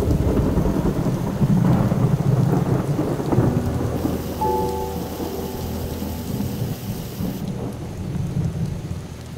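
Heavy rain pouring down with a long, deep rumble of thunder that breaks in suddenly, is loudest over the first few seconds and then slowly dies down.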